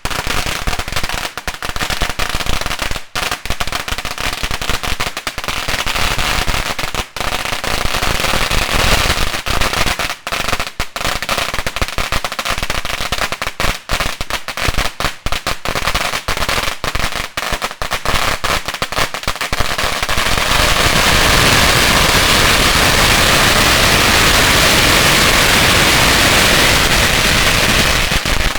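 A 10,000-count roll of firecrackers, thrown into a pot, going off in a rapid, unbroken string of bangs. About two-thirds of the way through the pops come so fast they run together into one continuous crackling blast, which stops abruptly at the end.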